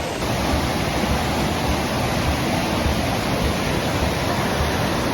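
Steady rushing of the Cullasaja River's whitewater and falls, an even roar with no breaks.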